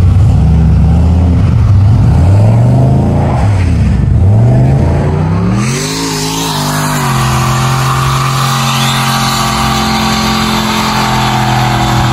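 V8 pickup engine revved in three blips, its pitch rising and falling each time. About halfway through, an engine revs up and is held at a steady high pitch under a loud hiss of spinning tires, as in a burnout.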